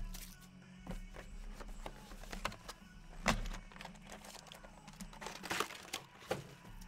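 Cardboard trading-card boxes being handled and set down on a tabletop: a few sharp taps and knocks, the loudest about three seconds in, over a steady low hum.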